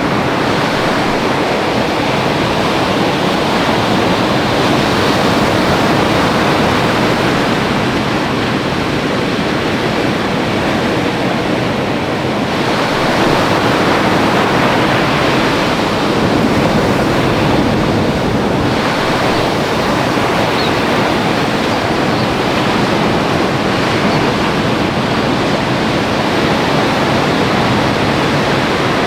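Steady rush of ocean surf breaking on a sandbar, growing a little louder for a few seconds near the middle.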